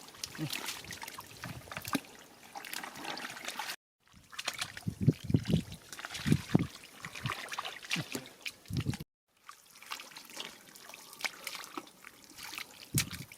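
Water trickling and splashing, with small crackling clicks. Two abrupt silent cuts break it, about four and nine seconds in.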